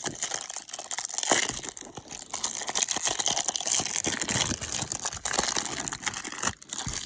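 Baseball trading cards being handled and flipped through: continuous rustling and crinkling with many small clicks.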